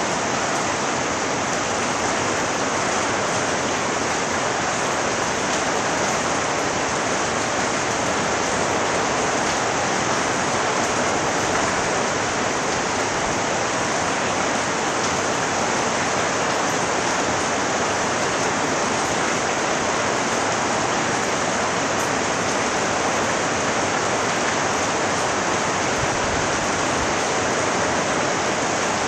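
Heavy rain falling steadily, with runoff pouring in streams off the eaves of a tiled roof onto the leaves below.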